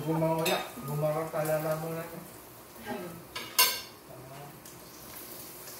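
Serving spoons and forks clinking against plates and dishes, with a sharp clink about half a second in and a louder one a little past the middle, mixed with a woman's voice.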